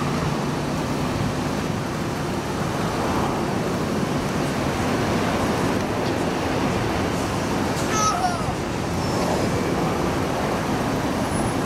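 Steady roar of distant airliner jet engines, a Boeing 737 rolling on the runway, over airport background noise. A brief high chirp comes about eight seconds in.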